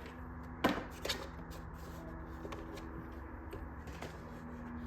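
Handling noises as a small 3D printer is turned around: one sharp knock about half a second in, a lighter one just after, then scattered soft clicks and rustles over a steady low hum.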